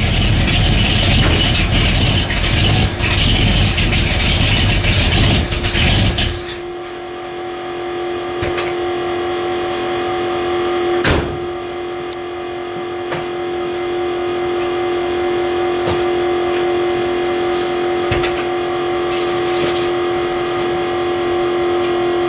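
1968 Ford Torino exhaust running loudly on a cold start. About six seconds in, the deep exhaust sound drops away abruptly, leaving a steady hum with a few sharp clicks.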